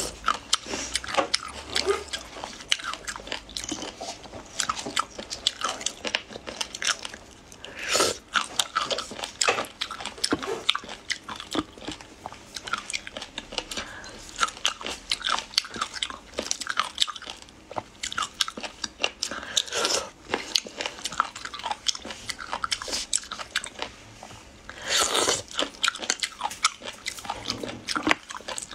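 Close-miked eating sounds: biting into and chewing crunchy raw seafood, a dense run of wet crunches and mouth clicks, with a few louder bites about a quarter of the way in, about two-thirds in and near the end.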